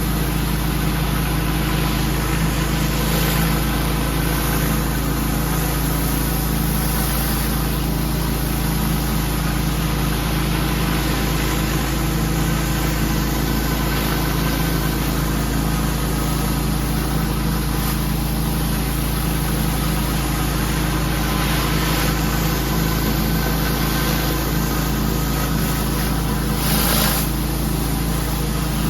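Gas pressure washer engine running steadily at a constant speed, with a steady high hiss over it.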